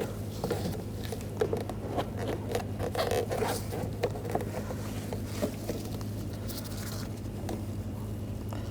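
An interior door trim piece on an Audi A4 being pried and worked loose with a trim tool: irregular small clicks, scrapes and rattles, over a steady low hum.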